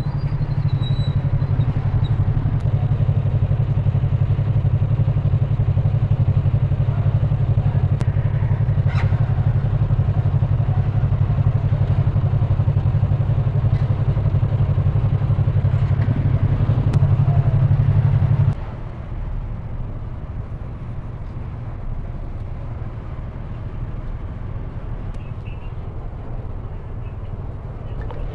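Motorcycle engine idling with a steady low drone. It cuts off abruptly about two-thirds of the way through, leaving a quieter low rumble.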